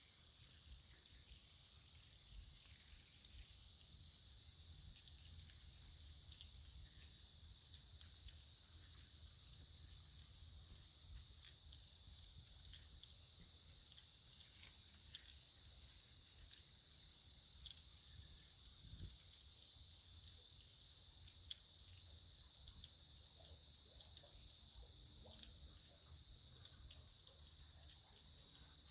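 Steady, high-pitched chorus of insects, crickets or cicadas, that swells over the first few seconds and then holds even.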